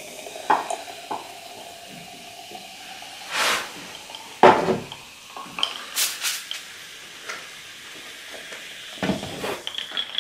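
Sprite being poured from a can into a glass jar mug: a steady fizzing hiss of carbonation, with a few sharp knocks, the loudest about four and a half seconds in.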